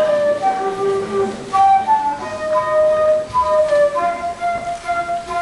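Concert flute played solo through a microphone: a melody of held notes, changing pitch every half second to a second.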